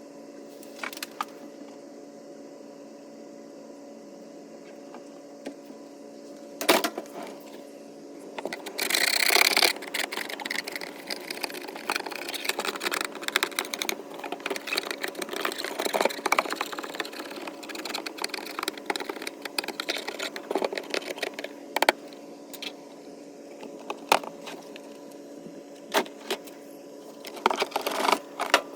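Metal tool scraping and scratching hardened mineral buildup off the inside of a swamp cooler, in quick irregular strokes with many sharp clicks. It starts about eight seconds in after a few single knocks, over a steady hum.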